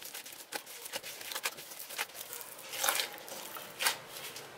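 Brioche dough being kneaded by a gloved hand in a stainless steel bowl: irregular wet squelching and small clicks as the soft dough is pressed and pulled, with two louder squishes about three and four seconds in.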